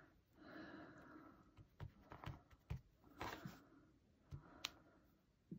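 Faint taps and light rustling of a clear acrylic stamp block as it is inked and pressed onto cardstock, with a few scattered soft ticks.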